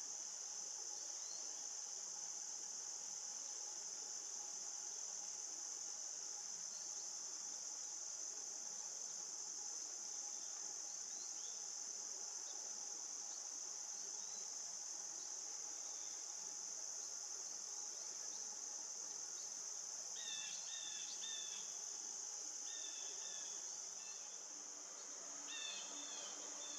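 A steady, unbroken high-pitched drone of an insect chorus, crickets or similar. Near the end come a few short groups of quick, high chirping calls.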